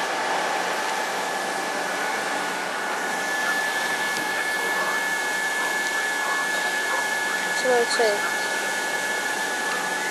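Electric train running with a steady whirring noise and a couple of steady high whines over it. Two short squeaks stand out about eight seconds in.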